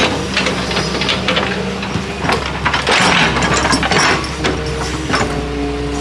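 Excavator at work: its diesel engine runs with a steady low drone and a hydraulic whine that shifts in pitch, over repeated scraping and knocking as the bucket works the ground.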